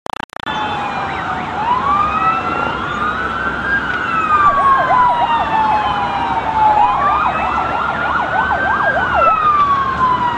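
Several emergency vehicle sirens sounding at once: slow wails that rise and fall, overlapped twice by a fast yelping warble. The sound cuts in and out for a moment at the very start.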